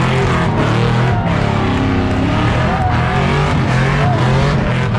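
Car doing a burnout, its engine held at high revs with the rear tyres spinning, mixed with background music that has a steady bass line.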